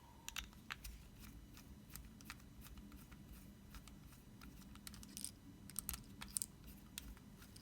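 Faint, irregular small clicks and scrapes of a 2mm Allen key working loose the internal bolts of an all-metal rotary tattoo machine and handling its parts.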